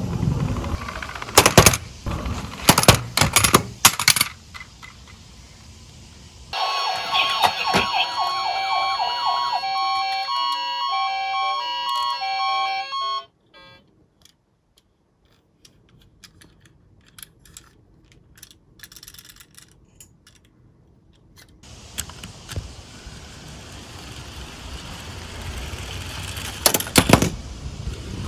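A small die-cast toy car rolls and rattles down a wooden board, with several sharp knocks in the first few seconds. A short electronic jingle plays for about seven seconds, followed by faint clicks and taps as die-cast toy cars are handled. Rolling noise then builds again as another car runs down the board, with sharp knocks near the end.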